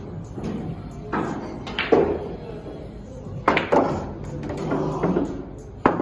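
Several sharp knocks of a pool cue and billiard balls striking, among short vocal sounds.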